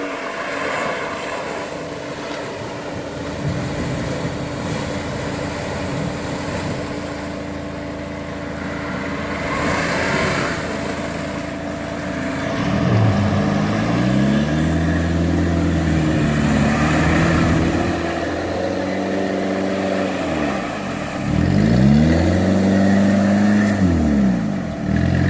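Off-road 4x4's engine running, then revved up and down repeatedly from about halfway in, its pitch rising and falling again and again.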